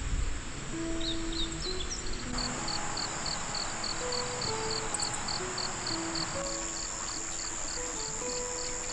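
Soft background music with sustained notes over an insect chorus: a steady high hum, and from about two seconds in a high chirp repeating about four times a second.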